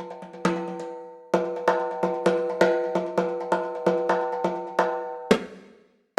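Sampled Middle Eastern percussion from the Discovery Series Middle East library playing a rhythmic pattern of sharp strikes that ring on a steady pitch. The strikes break off briefly about a second in, resume at about three a second, and end with a last hit near the end, which dies away.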